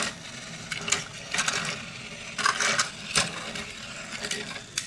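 Battery-powered Takara Tomy Plarail EF510 toy locomotive switched on, its small electric motor and plastic gearbox whirring steadily. Several short plastic clatters come from the toy cars being handled.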